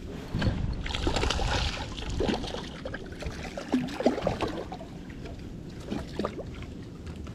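Water splashing and sloshing beside a kayak as a small hooked fish thrashes at the surface and is reeled in on a spinning rod, with irregular louder splashes and handling noise from the rod and reel.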